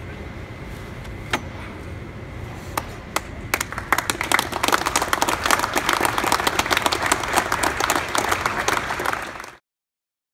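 Audience applauding: a few scattered claps, then full applause from about three and a half seconds in, over a low steady background rumble. It cuts off suddenly near the end.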